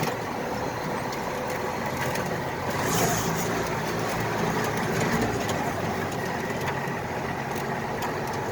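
A truck engine running steadily with a low, even hum.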